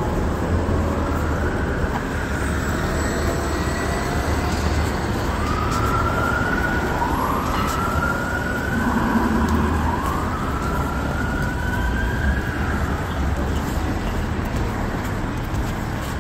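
Emergency vehicle siren wailing in slow rising sweeps, several in a row through the middle, over a steady rumble of city street traffic.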